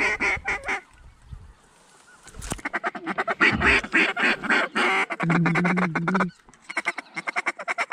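Waterfowl calls blown in a hunting blind: fast runs of short, clipped quacking and clucking notes, several a second. They stop for about a second and a half, a sharp knock sounds about two and a half seconds in, and the calling starts again and breaks off once more briefly near the end.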